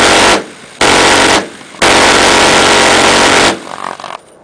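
Minigun firing in sustained bursts, each a continuous buzzing stream of shots: a short burst at the start, a longer one about a second in, and a long burst of almost two seconds that stops about three and a half seconds in.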